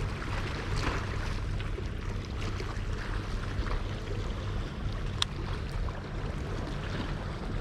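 Baitcasting reel giving faint scattered clicks and one sharp click about five seconds in, a clicking that the owner suspects is a level-wind fault. Under it runs a steady rumble of wind and water.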